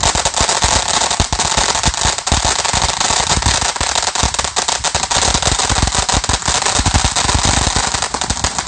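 Consumer fireworks going off on the ground: a dense, unbroken stream of loud crackling bangs.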